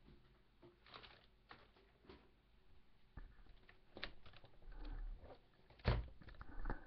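Close handling noise: scattered light clicks and knocks with some rustling and scraping, and a sharper knock about six seconds in.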